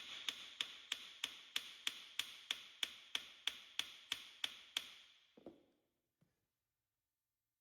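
Steady, light metal-on-metal hammer taps, about three a second with a ringing tone, on a seized square drain plug in the winch housing to shock it loose. The tapping stops about five seconds in, followed by one duller knock.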